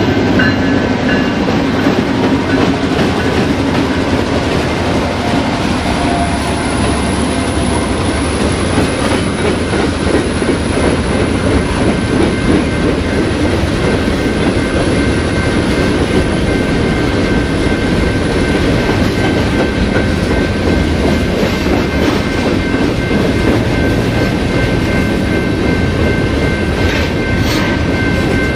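Freight train's open-top cars rolling past close by: a steady rumble of steel wheels on rail, with clickety-clack over the rail joints and a thin, high wheel squeal. A few sharp clanks near the end.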